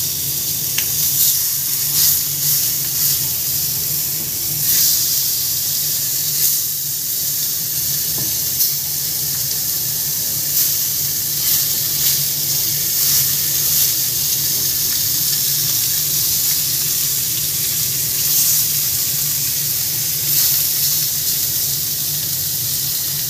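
Spice-marinated fish pieces sizzling in a little hot oil on a flat tawa as they are laid in one by one: a steady frying hiss with frequent crackles and pops, and a steady low hum underneath.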